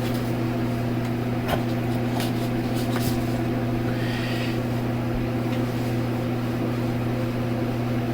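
Electric fan running with a steady hum, with a few faint short clicks and a brief soft scrape over it.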